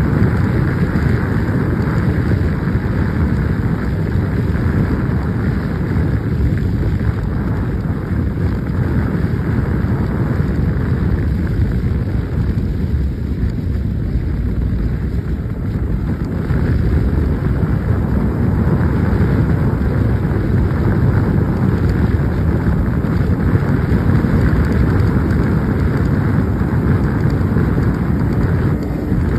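Motorcycle ridden at highway speed in sixth gear, its engine running steadily under heavy wind rushing over the phone's microphone. The sound eases a little about halfway through as the bike slows, then builds again.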